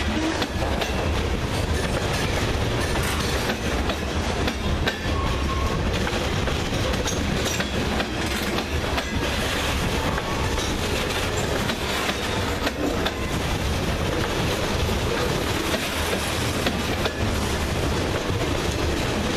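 Covered hopper cars of a freight train rolling past close by: a steady rumble of steel wheels on rail with frequent clickety-clack of the wheels.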